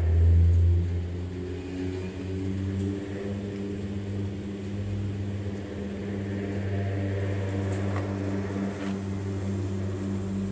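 Gondola lift running: a steady low mechanical hum from the haul rope rolling over the sheave wheels and the lift machinery, a little louder for the first second.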